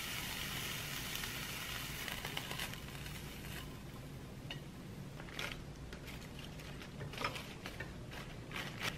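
Hot frying pan's soft sizzle dying away over the first few seconds as seared beef cubes are lifted off it, followed by a few light clicks and rustles of wooden chopsticks against the pan and wooden plate and of lettuce leaves being laid down.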